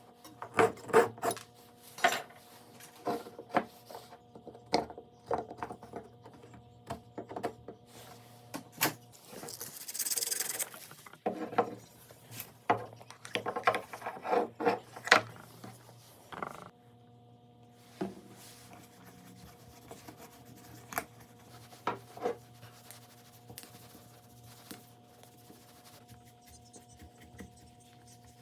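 Hand work on wood: scattered sharp taps and knocks with rubbing and rasping, busiest in the first half, with a brief hiss about ten seconds in, over a faint steady hum.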